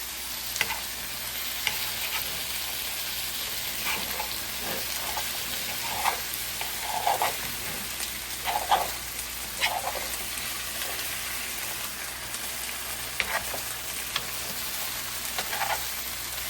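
Fried rice sizzling in a hot pot as it is stirred with soy and teriyaki sauce: a steady high hiss, with a utensil scraping and clicking against the pot now and then.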